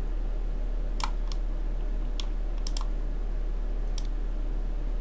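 About six short, sharp clicks of a computer mouse and keyboard, spaced unevenly, over a steady low hum.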